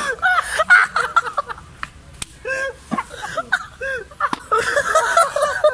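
A group of young people laughing hard and shrieking in short bursts, with a couple of sharp smacks in the middle.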